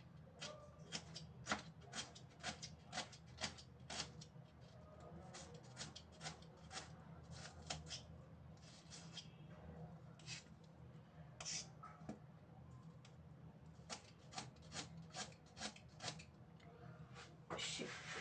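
Kitchen knife chopping an onion on a cutting board: runs of short, sharp taps, about three a second, in several bursts with pauses between.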